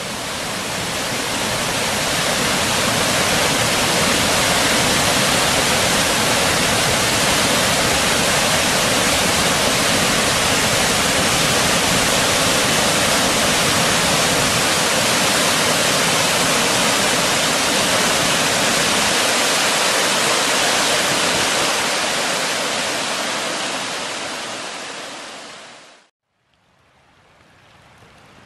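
Water pouring over a stepped cascade of rock ledges into a pool: a loud, steady rush. It fades out near the end, and after a moment's silence a much quieter creek running over shallow rocks fades in.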